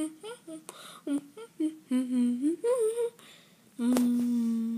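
A high voice humming and vocalizing in short wordless sounds, ending in one long steady hum from about four seconds in, with a sharp click just as it starts.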